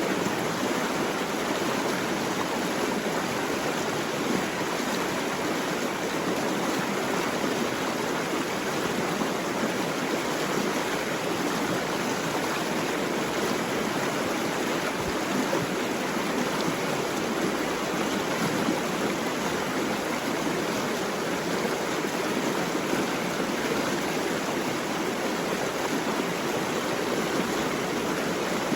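Running water, a stream or cascade, rushing steadily without a break.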